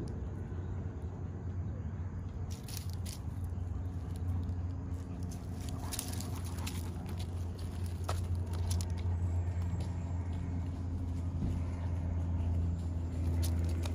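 Dry leaves and twigs crackling as a dog noses and steps around a tree's base, over a steady low hum.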